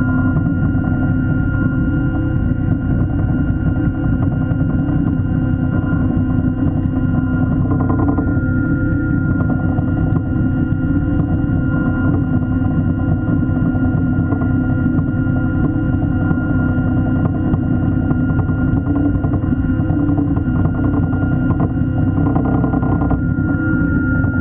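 Underwater scooter's electric motor running steadily, heard through the water: a constant whine over a dense low rush of water.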